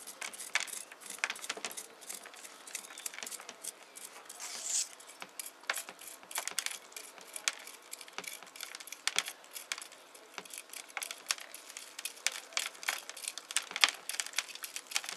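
Fingers picking and crumbling soil from a ficus root ball: a dense run of small irregular crackles and ticks as clods of dirt break off and fall, with a short rustle about five seconds in.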